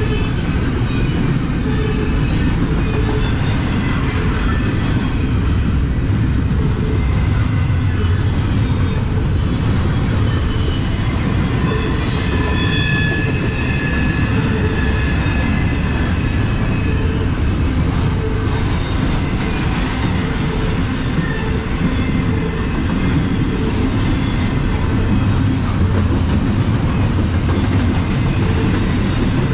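Double-stack intermodal container train rolling past: a steady rumble of steel wheels on rail. A little before halfway, the wheels squeal in high, brief tones for a few seconds.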